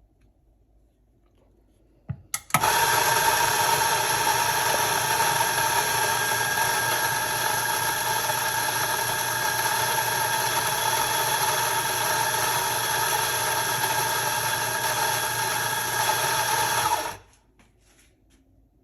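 Ceado E37J coffee grinder's motor running steadily for about fifteen seconds, grinding a dose of beans for the portafilter. A couple of sharp clicks come just before it starts, and it stops abruptly near the end.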